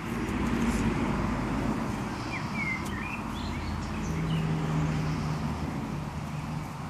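A steady low engine hum, its pitch dropping slightly about four seconds in, with a few short bird chirps in the middle.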